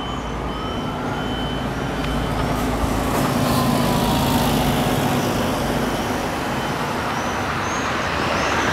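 City bus driving past with its engine running, over steady street traffic noise, loudest about halfway through. A fire engine's siren wails in the distance, its pitch rising slowly and then falling.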